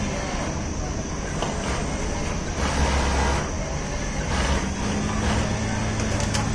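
Industrial sewing machines running on a garment factory floor: a continuous mechanical din with a steady motor hum, a louder low rumble about three seconds in, while a Pegasus machine topstitches a T-shirt neck.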